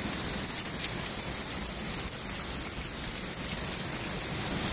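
Heavy thunderstorm rain pouring steadily, with water spilling over the tops of overflowing gutters and splashing down.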